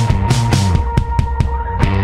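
Loud rock music with a steady drum beat and cymbal crashes over sustained notes.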